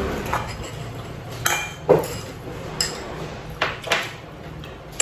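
Spoon and chopsticks clinking against porcelain plates and rice bowls while eating, about half a dozen separate clinks, the loudest about two seconds in.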